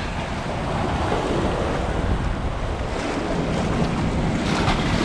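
Sea surf washing against rocks, with wind buffeting the microphone.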